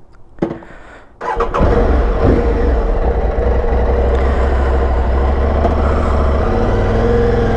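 Aprilia Tuareg 660's parallel-twin engine starting about a second in, then idling steadily.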